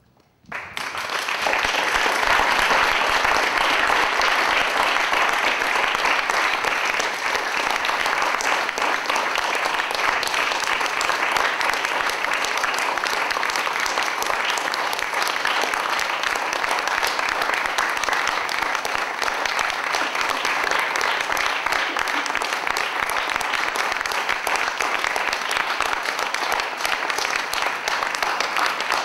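Audience applauding, a dense steady clapping that breaks in suddenly out of near silence about half a second in and holds at full strength.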